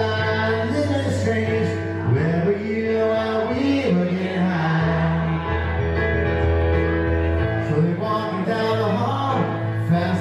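Baby grand piano played live, with a man singing along over sustained bass notes.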